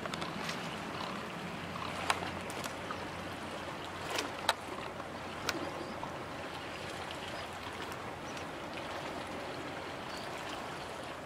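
Small waves lapping and sloshing on open bay water, with a few short sharp clicks around two, four and five seconds in. A faint low hum under the water fades out about halfway.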